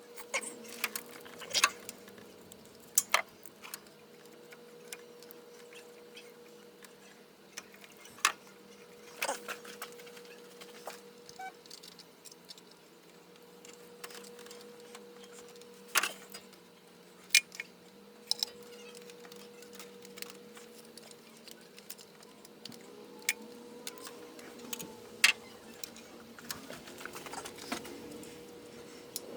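Hand tools clinking and tapping on metal while an old carburetor is unbolted from a small-block Chevy engine: scattered sharp clicks and clanks at irregular intervals, over a faint steady hum.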